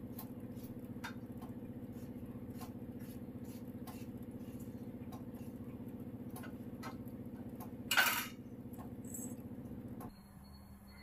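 Knife chopping a tomato on a steel plate: light, sharp ticks roughly twice a second, with one louder, longer scraping noise about eight seconds in, over a steady low hum that stops near the end.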